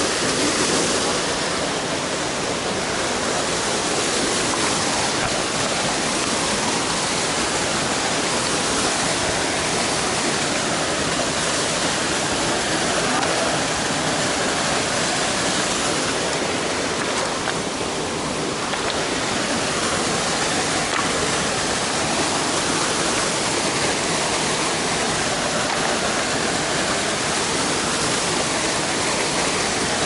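Gürleyik waterfall pouring into its rocky plunge pool: a steady, unbroken rush of falling water.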